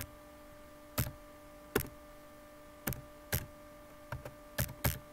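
Computer keyboard keys pressed one at a time, about nine separate clicks coming closer together towards the end, over a steady faint electrical hum.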